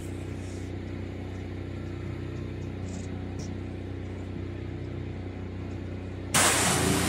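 A steady low mechanical hum runs throughout. About six seconds in, a loud hiss of water spray from a water-fed solar panel cleaning pole starts up.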